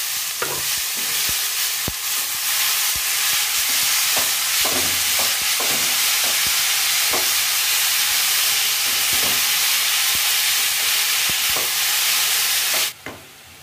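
Shredded cabbage, carrot and capsicum sizzling in hot oil in a metal kadhai, stir-fried on high heat to dry out their water, with a spatula scraping and clicking against the pan now and then. The sizzle cuts off suddenly near the end.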